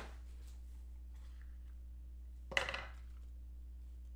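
Two short, hard knocks of a trading-card box and its lid being handled on a tabletop, one at the very start and one about two and a half seconds in, over a steady low hum.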